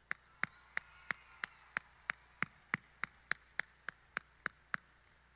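One person clapping hands steadily, about three claps a second, stopping near the end.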